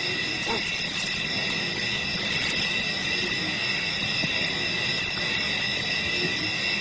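Low, steady growling of a leopard facing off against a hyena, under a steady high-pitched chorus of several even tones.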